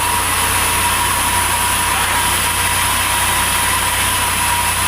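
Engine-driven sawmill machinery running steadily: a constant low hum with a steady high whine over it.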